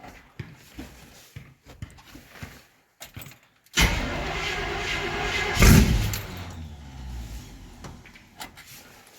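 Carbureted 350 V8 of a 1971 Chevy C10, cold after sitting for months, cranking for about two seconds on the starter, catching with a loud burst, then winding down in pitch and dying away: a hard cold start. A few light clicks come first.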